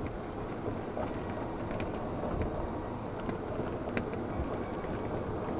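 Golf cart driving along a paved cart path: a steady low rumble from the cart and its tyres, with wind noise on the microphone.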